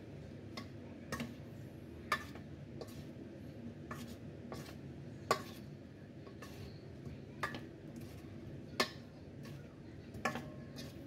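Spoon clinking and scraping against a stainless-steel mixing bowl while cauliflower florets are stirred into a thick batter: irregular sharp clinks about once a second, a few louder, over a low steady hum.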